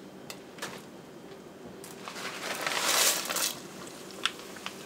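Plastic bag crinkling as the last dried sorrel is shaken out of it into a pot of hot water, with a few light clicks and a louder rustle about three seconds in.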